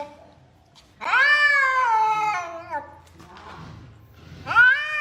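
A domestic cat giving long, drawn-out meows: one about a second in that lasts nearly two seconds and slides down in pitch, and another starting near the end.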